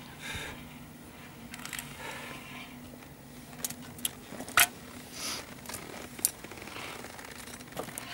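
Footsteps and knocks on the old wooden planks of a mountain suspension bridge as someone crosses it. There is soft rustling, and a scatter of sharp clicks in the middle, the loudest about four and a half seconds in.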